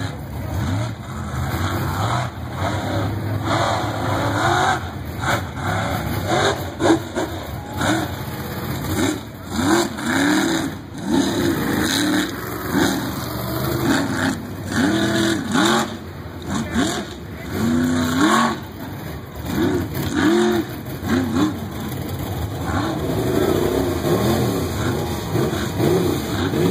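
Mega truck engine revving hard as it races over a dirt track, its pitch rising and falling again and again with the throttle.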